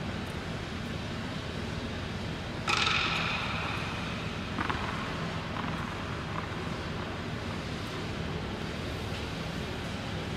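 Steady background hum of a large indoor tennis hall. Nearly three seconds in comes a sudden ringing impact that dies away over about a second, and a couple of lighter knocks follow it.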